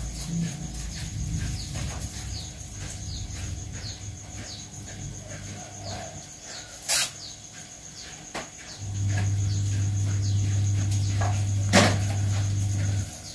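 Insects chirping steadily in a fast high pulsing trill with short repeated falling chirps, joined by a steady low hum from about nine seconds in that stops shortly before the end, and two sharp clicks, about seven seconds in and just before twelve seconds.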